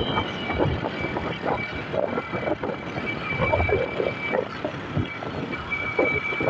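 A motor vehicle moving along a road, heard from on board: engine and road noise with irregular gusts, and a steady high-pitched whine over it.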